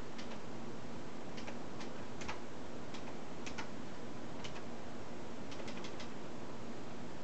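Quiet indoor room tone, a steady hiss with a faint low hum, broken by scattered light clicks, one at a time or in small clusters of two to four, at irregular intervals.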